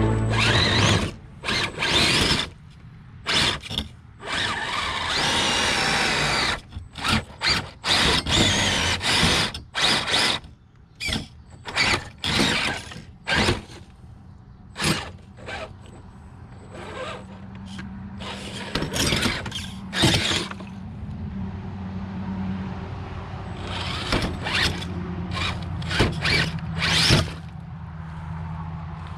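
Electric motor and geared drivetrain of a Gen8 1/10-scale RC rock crawler whirring in short, irregular throttle bursts as it climbs, with its tyres and chassis scraping and knocking on the rocks.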